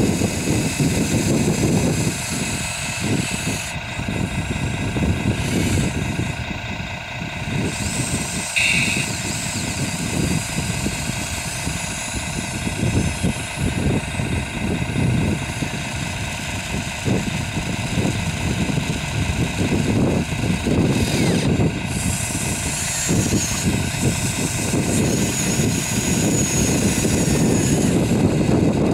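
Small electric motors of a radio-controlled model excavator whining steadily while it digs and swings its arm, over a constant low rumble.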